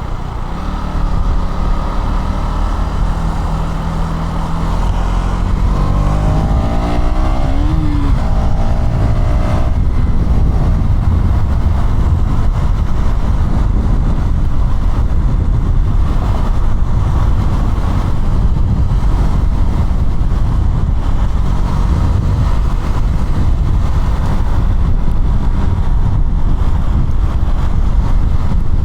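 KTM Duke 200 single-cylinder motorcycle engine on the move, revving up with a rising pitch about six to nine seconds in, then running at steady road speed under a loud low rush of wind and road noise.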